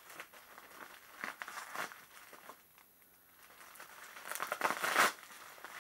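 Plastic wrapping on a package being crinkled and pulled at by hand, in irregular rustling bursts that get loudest about four to five seconds in.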